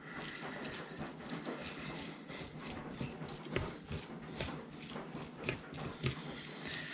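Mashed potato being mixed into raw meat in a bowl: irregular soft squishing with scattered light clicks and knocks.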